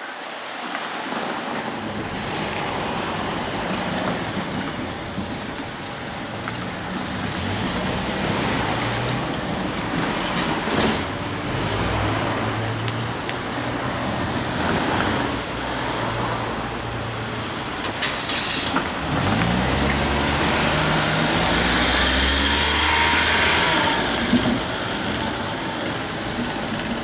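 Vehicles passing in a steady rush. The noise grows louder about twenty seconds in, and low motor tones step and then rise in pitch as a vehicle accelerates.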